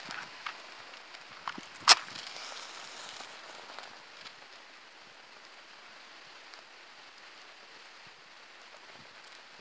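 A wooden match struck on a matchbox about two seconds in: one sharp scrape as it catches, a brief flare hiss, then a faint steady hiss, with a few small clicks before the strike.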